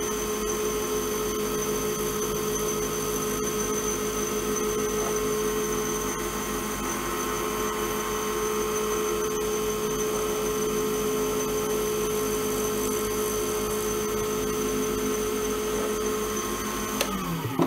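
Wood lathe running at a steady speed with a steady whine, spinning a resin pen blank; near the end its pitch falls as it is switched off and winds down.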